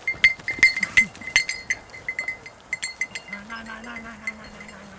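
Small metal bell jangling in quick, irregular clinks, loudest and busiest in the first second and a half.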